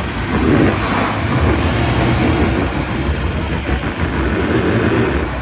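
Land Rover Defender engine running under load as the truck crawls through a deep off-road rut, the revs picking up about half a second in and holding.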